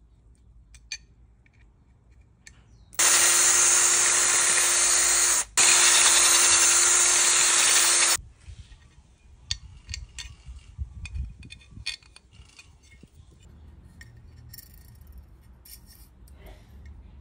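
Cordless drill driving a bolt into an aluminium rack mount with a hex bit: two steady runs of about two and a half seconds each, with a brief stop between. Afterwards, light clicks and taps of the parts being handled.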